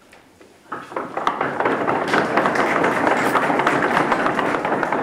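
Audience applauding, setting in about a second in after a short hush.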